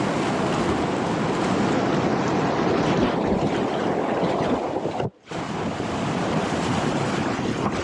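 Rushing whitewater of a river rapid, a loud steady wash of water, with wind buffeting the microphone. The sound cuts out for a moment about five seconds in.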